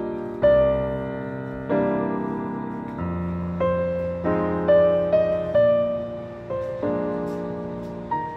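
Background piano music: a slow tune of struck notes over chords, each note fading after it is played.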